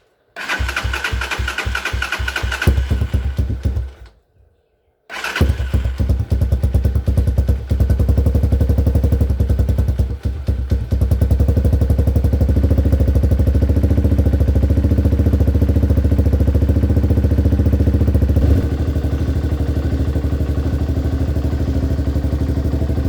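Hawk 250 dirt bike's single-cylinder four-stroke engine cranked by its electric starter on a freshly replaced battery, with a whining starter motor. It catches and runs briefly, then dies. It is cranked again, fires, revs a little and settles into a steady idle, showing the dead battery was the only fault.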